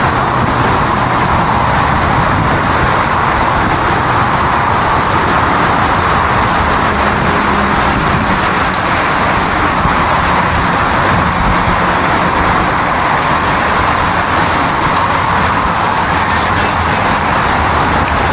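Steady motor-vehicle noise: a low engine hum under an even rush of road and tyre noise, holding constant.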